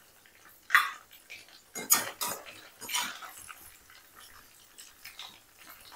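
A few brief metal clinks and scrapes of a slotted steel spoon against a metal kadhai while fried meat pieces are scooped out, spread over the first half, then only faint small sounds.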